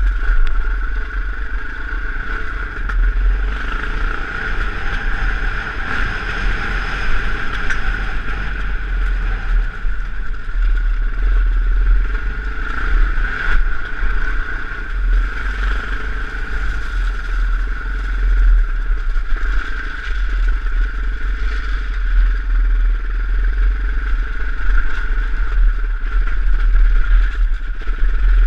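KTM off-road motorcycle engine running steadily as the bike is ridden over a rough, stony track, with a strong constant low rumble underneath.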